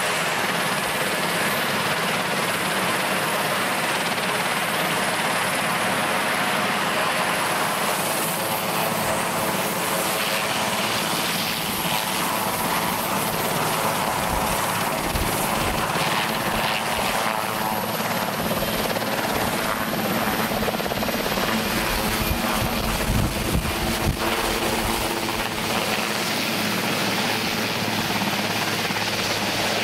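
Sikorsky VH-3 Sea King (Marine One) helicopter running on the ground, with a steady turbine whine and rotor noise. The low rotor beat grows heavier through the second half as it powers up and lifts off near the end.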